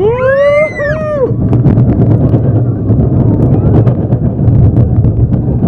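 A girl screams for about a second, her voice rising in pitch, then loud wind buffets the microphone over the rumble and clatter of the moving roller coaster.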